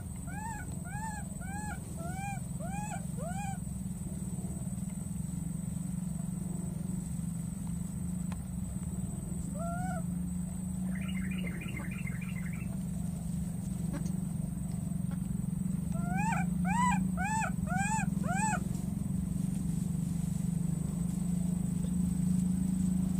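Baby monkey giving short, high-pitched calls that each rise and fall in pitch: a quick run of about six at the start, a single call around ten seconds in, and five more later, over a steady low hum. These are the contact calls of a young monkey calling for a lost companion.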